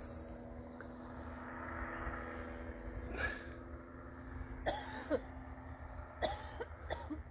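Paramotor engine of a motorized paraglider flying overhead, a steady distant drone, with wind rumbling on the microphone. Three short, harsh sounds cut across it, the loudest in the second half.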